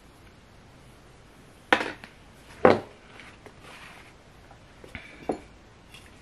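Small hard objects clattering as they are put down and picked up: two sharp clacks about two seconds in, a second apart, then two fainter knocks about five seconds in.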